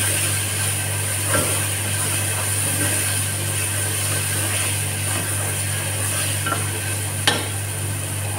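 Chopped tomatoes and onions sizzling in oil in a pot while a wooden spatula stirs and scrapes through them, over a steady low hum. A few sharp knocks of the spatula against the pot, the loudest near the end as it is set down.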